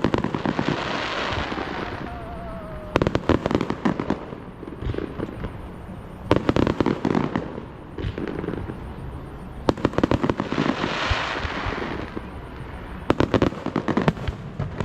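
Fireworks going off in volleys of rapid crackling pops about every three seconds, some followed by a fading hiss of sparkle.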